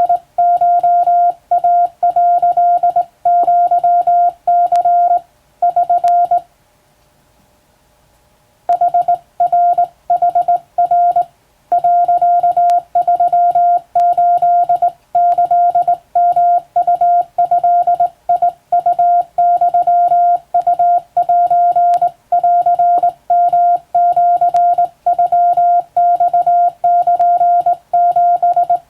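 Hand-keyed Morse code sent on a telegraph key: a steady mid-pitched beep switched on and off in dots and dashes, sending Japanese wabun code. The sending breaks off for about two seconds, about six seconds in, then carries on.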